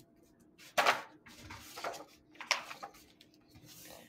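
A hardcover picture book being handled and opened: several short paper rustles and knocks of the cover, the sharpest about a second in.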